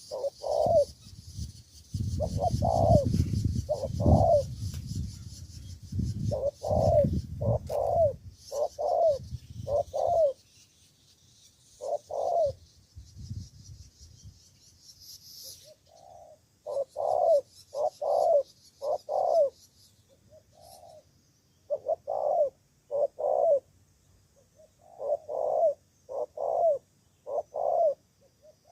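Spotted dove cooing over and over in short phrases of several notes. A low rumble runs through roughly the first ten seconds, and a high buzz sits in the background.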